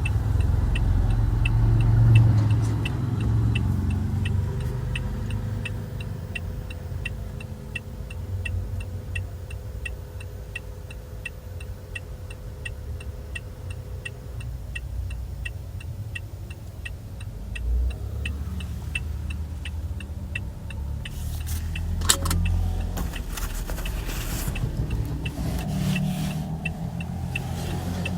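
Toyota Aqua's turn-signal indicator ticking evenly, about two ticks a second, over the low rumble of the car heard from the cabin. The ticking pauses for a few seconds late on, with a couple of knocks, and then resumes.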